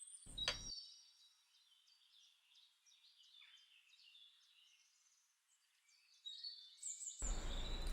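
Faint birdsong: many short, high chirps and brief whistles, with a single click about half a second in.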